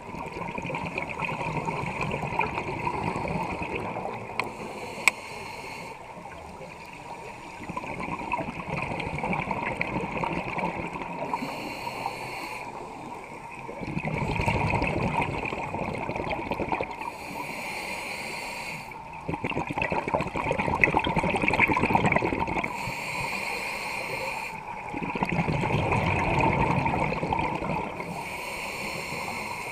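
Scuba breathing heard underwater: hissing inhalations through a regulator alternating with louder rumbling, bubbling exhalations, about every five to six seconds.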